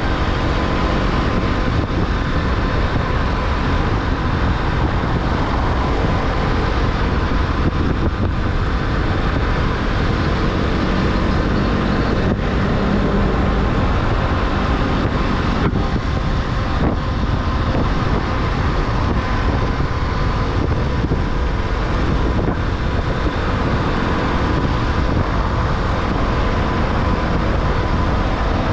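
Motorcycle riding at steady cruising speed on a highway: continuous wind rush and road noise on the rider's camera microphone, with the bike's small single-cylinder engine running steadily underneath and traffic around it.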